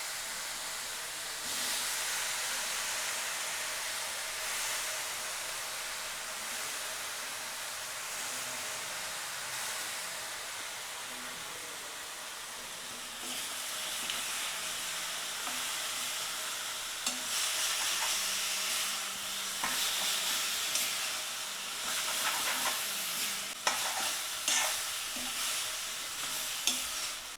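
Broccoli pieces sizzling in a pan of sautéed onion-tomato masala while being stirred. The sizzle is steady, then grows louder past the halfway point, with irregular scrapes and knocks of the stirring spoon against the pan.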